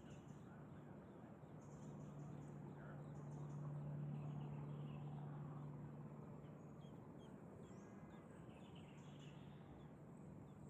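Small birds chirping faintly in short scattered calls, over a low steady hum that swells in the middle and then fades.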